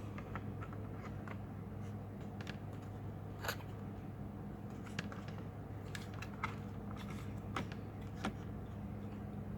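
Scattered small clicks and taps of hands handling the parts and screws of an opened laptop, about a dozen, the sharpest about three and a half seconds in, over a steady low hum.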